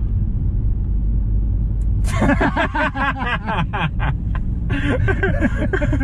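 Steady low road rumble inside a moving car's cabin; about two seconds in, two men start laughing hard, and the laughter is the loudest sound.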